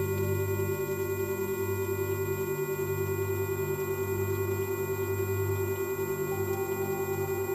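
Layered steady synthesized tones at several pitches, the strongest a mid-low hum that pulses several times a second over lower droning tones, with thin faint whistles high above: a sound-therapy 'frequency' track.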